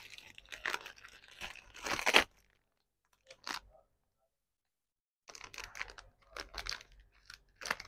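Packaging being torn and rustled by hand, crinkling and crunching in two spells with a silent pause of about three seconds between them.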